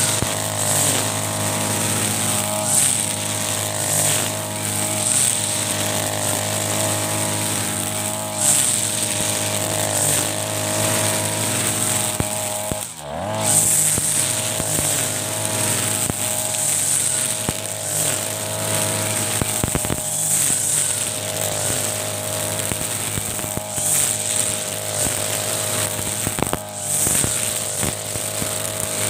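Mitsubishi TB43 two-stroke brush cutter running at high speed, its line head cutting grass. About thirteen seconds in the engine speed dips briefly and then picks back up.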